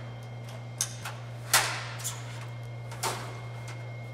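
X-ray table's cassette tray being slid out and the cassette lifted from it: a few sharp clicks and knocks, the loudest about a second and a half in, over a steady low hum.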